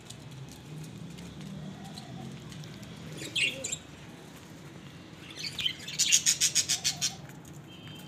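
Birds chirping: a short high burst about three seconds in, then a quick run of about ten sharp chirps near the end.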